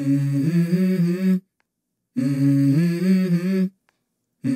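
A short hummed melodic phrase of about a second and a half in a low voice stepping through a few notes. It is heard twice with a silent gap between, and a third time starting near the end.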